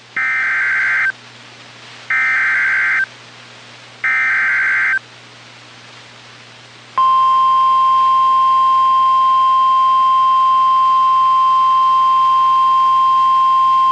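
Three one-second bursts of the EAS/SAME digital header, a harsh two-tone data screech, repeated about a second apart. After a short pause, the steady 1050 Hz NOAA Weather Radio warning alarm tone starts about seven seconds in and holds. Together they signal the start of a new warning broadcast.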